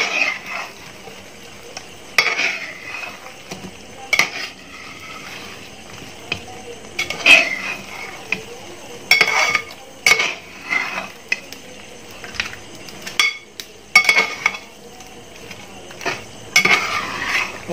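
A spatula stirring fried chicken through thick masala in a large metal pot, scraping and clinking against the pot every second or two over a steady sizzle.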